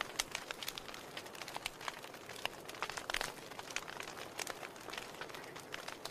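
Wood logs burning in a fireplace, crackling: many irregular sharp pops and snaps over a soft steady hiss.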